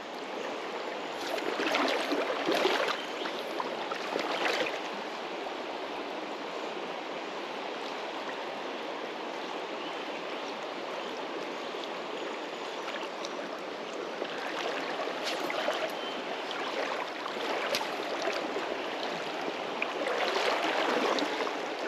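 Shallow creek water running steadily over stones, with several louder rushes of water noise: around two seconds in, again around four seconds, in the middle of the second half, and near the end.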